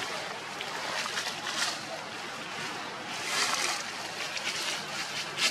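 Rustling and crunching of dry leaf litter in irregular bursts, loudest about three seconds in.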